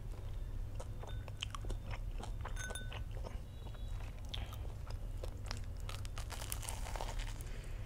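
Close-miked crunching and chewing of a breaded, deep-fried Korean-style corn dog with a cheese filling: many sharp crackles of the crisp crust as it is bitten and chewed.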